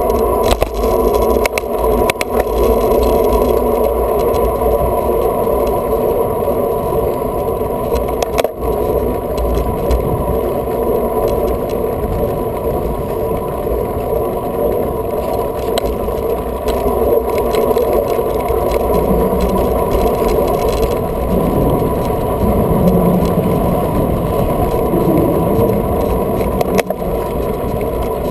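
Steady wind and road noise from a bicycle ride on a paved path, picked up by a handlebar-mounted camera, with a few sharp knocks and rattles from bumps in the path.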